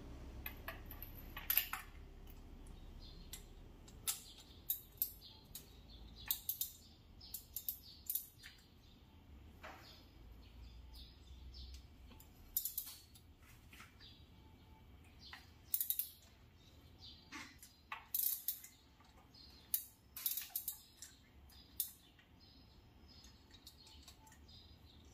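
Irregular light clicks and clinks, a few loud and sharp, typical of hand tools and small metal parts being handled during a spark plug change.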